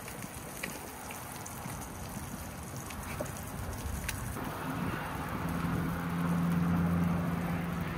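Frying food sizzling in a pan, with a few light clicks of a knife against a metal bowl. About halfway through, a low steady engine hum joins in and grows a little louder.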